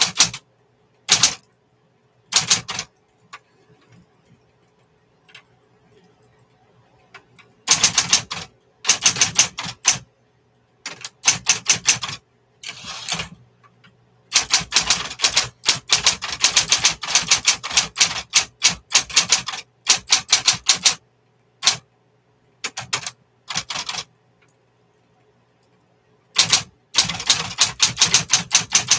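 1960s Smith-Corona Coronet electric typewriter being typed on in rapid bursts of sharp key strikes, with pauses between runs. The longest run comes in the middle, followed by a gap and a final run near the end. A low steady hum sits underneath in the pauses.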